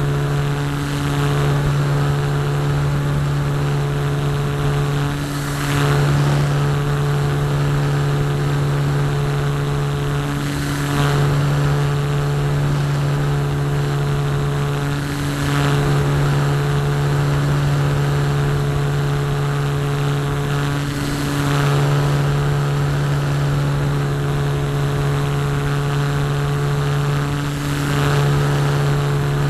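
ParkZone Radian's Firepower 10 brushless electric motor spinning the propeller, a steady hum heard from a camera on the airframe with rushing air. The sound swells briefly about every five or six seconds.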